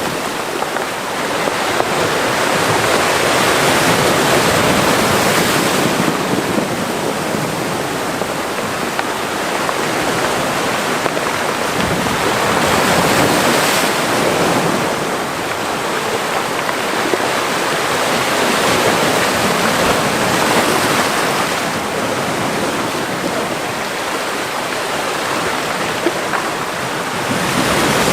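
Mediterranean sea waves washing into a small rocky cove, a steady rush of surf that swells and ebbs every few seconds.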